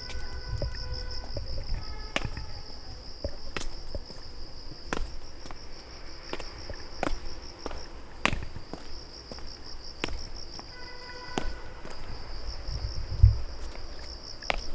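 Insects trilling steadily in a high, pulsing chorus, with footsteps on a trail about every second and a louder thump near the end.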